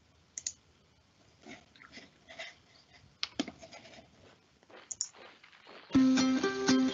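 Faint scattered clicks and small room noises, then music with a plucked-string rhythm starting suddenly near the end.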